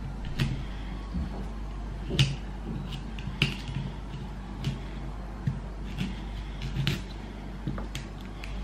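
Kitchen knife cutting broccoli florets from the head: short, sharp knocks and snaps, about one a second at irregular spacing, as the blade cuts through the stems and meets the wooden cutting board.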